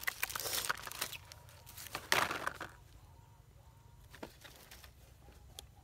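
A plastic bag crinkling and rustling as small cardboard boxes are handled in it, loudest about two seconds in, followed by a few light clicks and taps.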